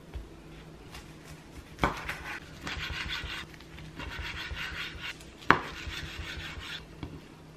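Kitchen food-prep sounds on a board: two sharp knocks, and stretches of scraping and rubbing between them.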